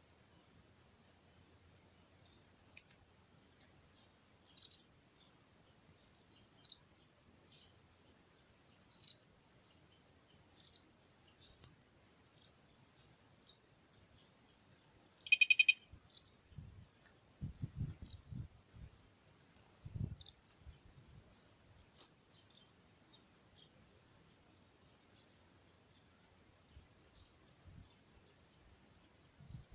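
Small birds chirping sparsely, with a short warbling run of high notes past the middle. About halfway through comes a brief, pulsing high-pitched beep, the loudest sound here, followed by a few low thumps.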